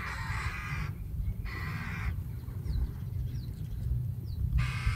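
Magpie chattering: three harsh, rattling bursts of under a second to about a second each, the last starting near the end, over a steady low rumble.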